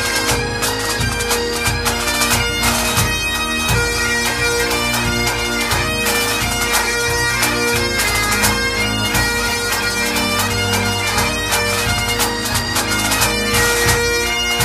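Highland bagpipes playing a tune over steady drones.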